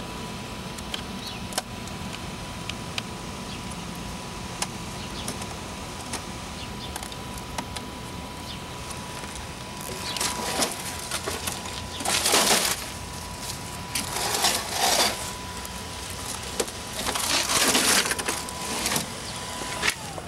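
Wrecked Canon photocopier being worked: a steady high whine with four loud bursts of crunching and grinding in the second half.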